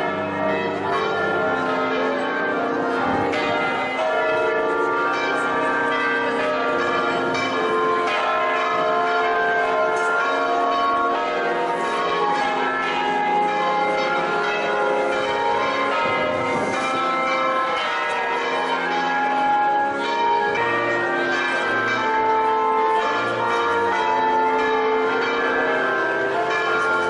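Church bells ringing a continuous peal, many bells sounding over one another in a steady, unbroken stream of struck and ringing tones.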